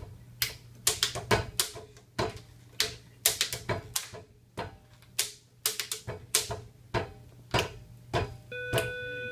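A group of people making short, sharp percussive sounds one after another, such as claps, snaps and clicks, at an irregular pace of about two a second. A steady held tone comes in near the end.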